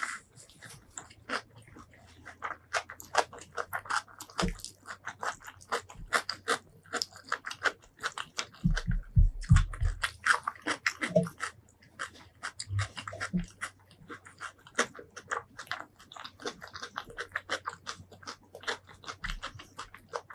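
Close-miked eating sounds: continuous rapid chewing and biting with crunches and wet mouth clicks. There is a short run of heavy low thumps about halfway through.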